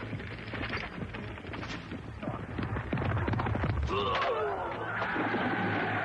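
Cartoon jousting sound effects. Galloping hooves and rapid clattering build to the lance strike about four seconds in, with a cry as the knight is knocked from his horse. A crowd then shouts and clamours.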